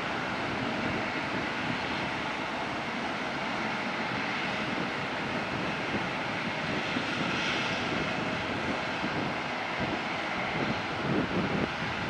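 Airbus A320 jet engines at takeoff power, a steady jet noise heard from beside the runway as the airliner rolls, rotates and lifts off. The sound grows louder and rougher near the end as the aircraft climbs out.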